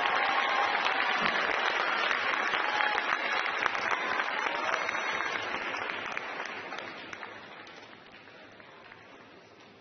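Arena audience applauding, dying away over a couple of seconds near the end into a quieter hall.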